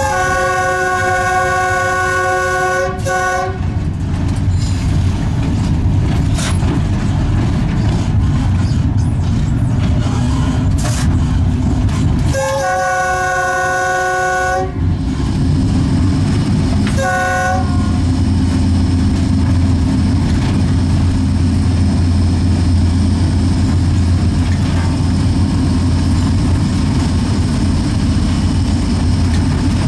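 EL2 electric locomotive running along the line with a steady low hum and track noise, its horn sounding three times: a long blast at the start, another long blast about twelve seconds in, and a short toot a few seconds after that.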